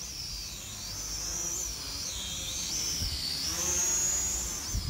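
Small toy quadcopter drone in flight, its electric motors and propellers giving a high whine whose pitch keeps rising and falling as it hovers low.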